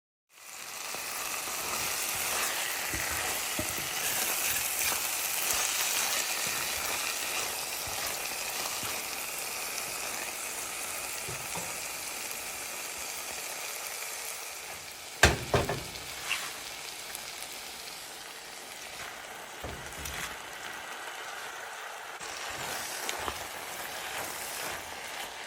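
Food sizzling as it fries in oil in a cooking pot, with stirring, a steady hiss that is loudest early on and eases slightly. A sharp knock of the spoon on the pot about 15 seconds in, then a few lighter knocks.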